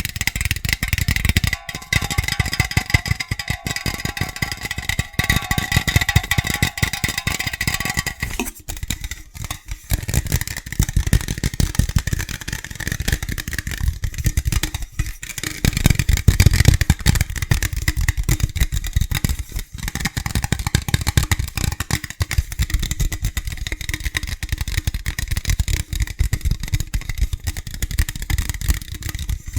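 Fast, hard tapping with fingers on hard objects, many taps a second. For the first eight seconds or so the object rings with steady tones under the taps. After that the tapping moves to a duller object that does not ring.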